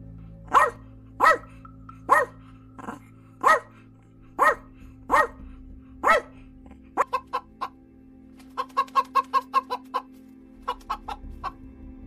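A Pomeranian barking: about eight sharp, high-pitched yaps, a little under a second apart. Then hens clucking in quick runs of short notes, with music faint underneath.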